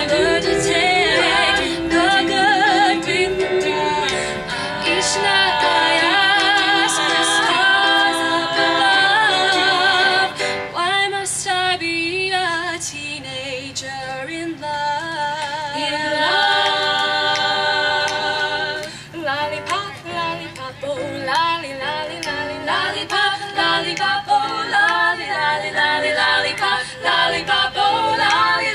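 Female vocal group of five singing doo-wop a cappella in close harmony, several voices holding long chords together. About two-thirds of the way through the singing turns to shorter, choppier phrases.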